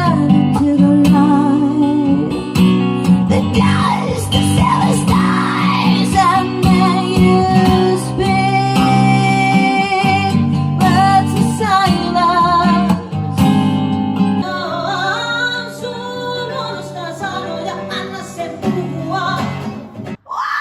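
A woman singing with vibrato over a plucked and strummed acoustic guitar. About four to six seconds in, sweeping up-and-down pitch glides run through the song. The music cuts off suddenly just before the end.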